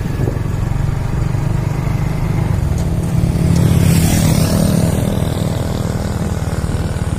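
Motorcycle engine running steadily at cruising speed, heard from the moving bike. A louder rush of noise swells briefly about four seconds in.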